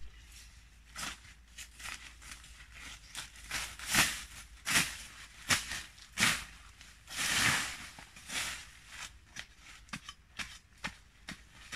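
A hand tool chopping and sweeping through grass and undergrowth: irregular sharp strikes with rustling of leaves and stems, getting louder about four seconds in, with one longer rustle a little past the middle.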